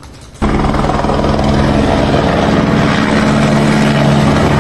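Loud, steady engine drone with a low hum and a fast flutter, cutting in abruptly about half a second in.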